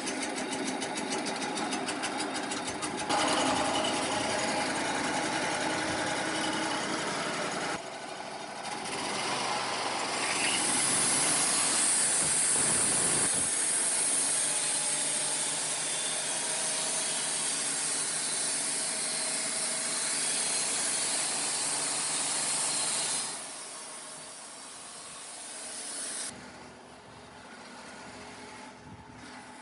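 Engine running, with the sound changing abruptly several times. From about ten seconds in to past twenty seconds, a strong steady hiss sits over it, which may be a saw cutting. It drops much quieter near the end.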